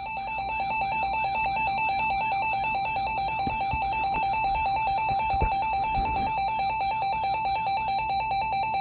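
RadioShack 12-253 weather alert radio sounding its alert alarm for a severe thunderstorm warning: a loud, steady tone that warbles rapidly between two close pitches.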